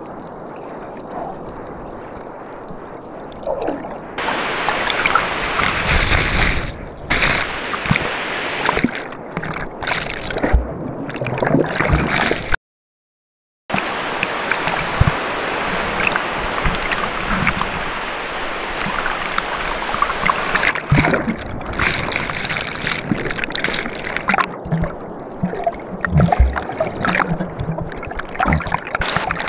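Ocean surf with waves breaking and water washing close to the microphone at the waterline, cut off by about a second of silence roughly thirteen seconds in.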